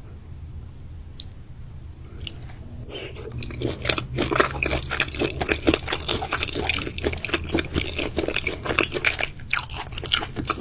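A person chewing raw meat close to the microphone. The chewing is sparse for the first few seconds, then becomes dense and continuous from about three seconds in, with many quick, sharp mouth clicks.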